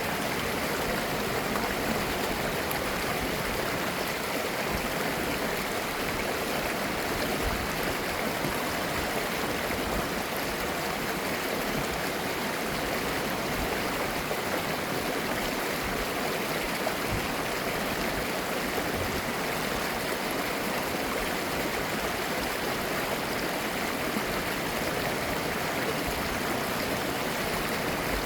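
Mountain stream flowing over rocks: a steady rush of running water with gurgling.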